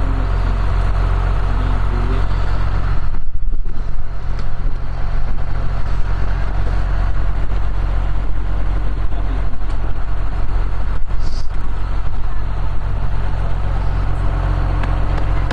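Engine of a snow-clearing machine running steadily, with a strong low, even hum.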